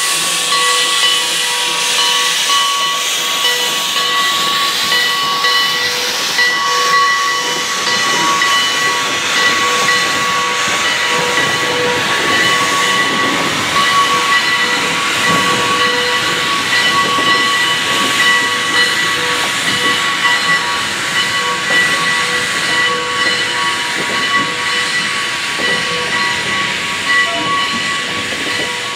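Heisler geared steam locomotive venting steam: a loud, steady hiss with steady whistle-like tones sounding through it.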